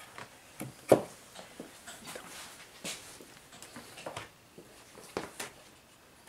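Scattered light knocks and scrapes of model buildings on their display bases being slid and set down on a tabletop, with one sharper knock about a second in.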